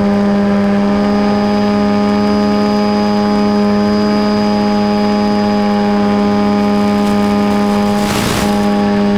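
Steady buzzing drone of the FPV glider's onboard electric motor and propeller, held at constant throttle. About eight seconds in, a brief burst of hiss as the radio video link breaks up.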